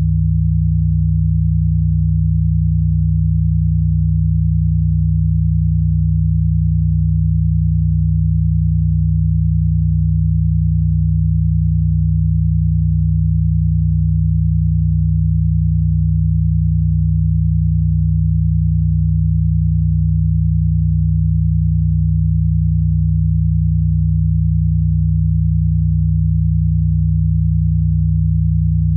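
A steady, low-pitched electronic tone, a healing-frequency sine tone, held without change.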